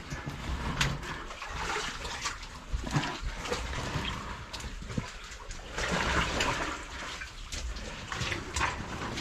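Water sloshing and splashing as a person crawls through a flooded cave passage, with scattered sharp knocks and splashes.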